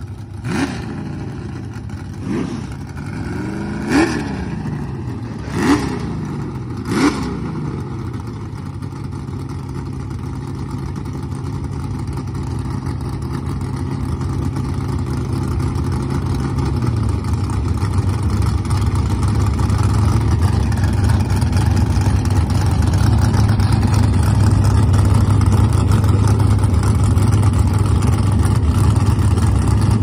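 Fox-body Ford Mustang drag car's engine blipped five times in quick rev spikes, then idling steadily. The idle drops a little in pitch and grows louder about halfway through.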